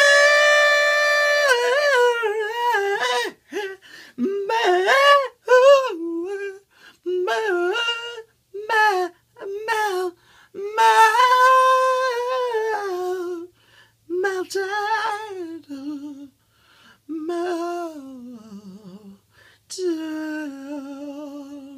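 A man singing unaccompanied in a high voice, in short phrases with pauses between. He holds long notes, one at the very start and another about eleven seconds in, and the notes waver near the end.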